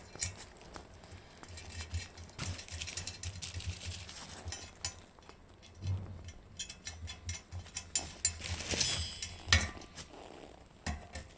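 Tools and metal springer-fork parts knocking and clinking during assembly, with a quick run of ticks past the middle and a louder scrape near the end.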